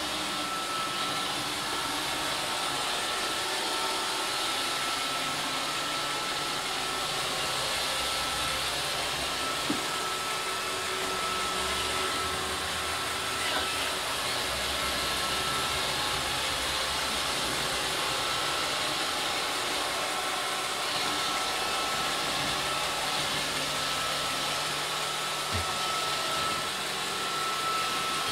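iRobot Roomba 532 robot vacuum running across a wooden floor: a steady whir from its vacuum motor and brushes with a thin, steady whine on top, and a few faint knocks.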